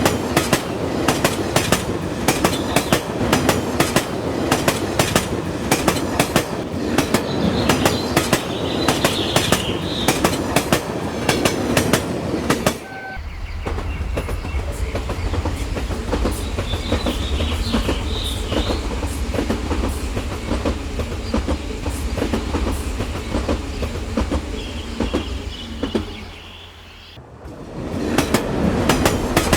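Rail King toy train running on its track, its wheels clicking over the rail joints in a fast, uneven rattle. About 13 seconds in the sound changes abruptly to a steady low hum with fainter clicking. Near the end it drops away briefly, then the clicking returns.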